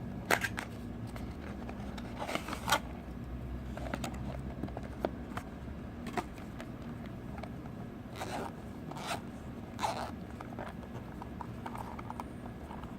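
Earphone packaging being handled and opened: short, scattered scrapes and rustles, a few louder ones near the start, a little before three seconds in and again near the end. A steady low hum runs underneath.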